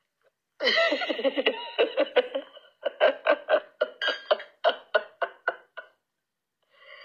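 A person laughing: a drawn-out pitched laugh that breaks into a run of quick bursts, about four a second for some three seconds.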